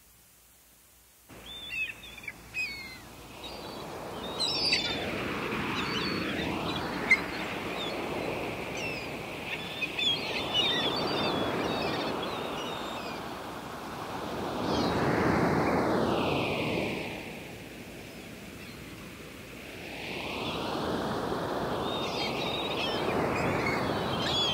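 Ocean surf from a new age nature-sounds cassette, rising and falling in slow swells, with small birds chirping over it; it fades in about a second in after near silence. The surf carries a slow sweeping, phasing change in tone.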